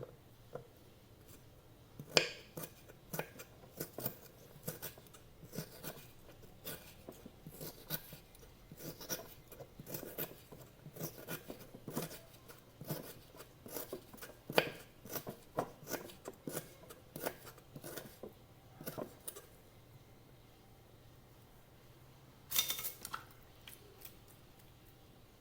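Plant material being cut into pieces: a long run of short, sharp snips at an irregular pace of about two a second, which stops for a few seconds before a brief quick cluster near the end.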